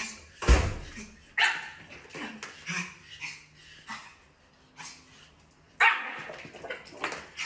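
Small white fluffy puppy yapping: about half a dozen short, sharp barks spaced out with pauses, the loudest near the start and about six seconds in.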